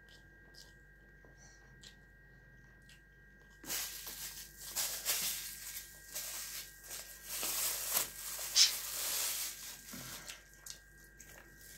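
Close eating sounds of boiled turkey on the bone: chewing and tearing at the meat by hand. A crackly, rustling noise starts about three and a half seconds in, swells and fades for several seconds, and dies away near the end.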